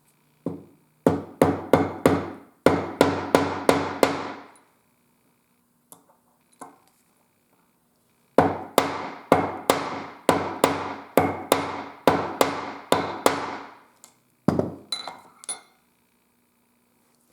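Mallet blows on a leatherworking tool: two runs of quick, even strikes about three a second, with a short pause between them, then a last blow and a few lighter clinks.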